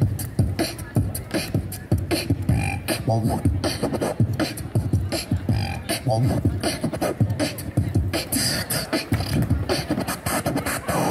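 Amplified beatboxing through a microphone: one performer layering six mouth-made sounds at once, including a bass drum, snare, hi-hat and a DJ turntable scratch, in a steady, fast beat.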